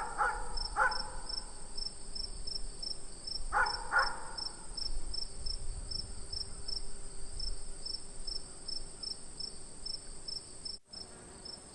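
Crickets and other insects chirping steadily: a continuous high trill layered with a pulsing chirp about twice a second. A few short pitched calls sound near the start and about four seconds in, and the sound drops out for an instant near the end.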